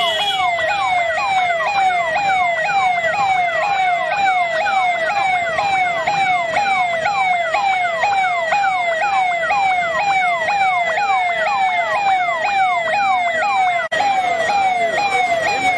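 Electronic police-style siren on a convoy escort vehicle, sounding continuously in a fast up-and-down yelp of about two to three sweeps a second. A second siren sweeping at a different rate overlaps it.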